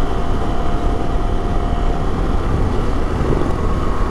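KTM 890 Adventure motorcycle ridden steadily at road speed: loud wind rush over the microphone with the parallel-twin engine running underneath.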